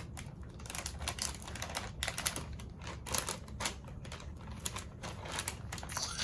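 Plastic toy packaging being handled and worked at by hand: a run of irregular crinkles and clicks.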